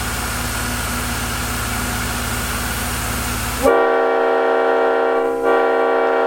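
A loud, steady rushing noise with a low rumble, then a little over halfway in a Leslie S5T five-chime locomotive air horn sounds its chord, with a brief break about a second and a half later.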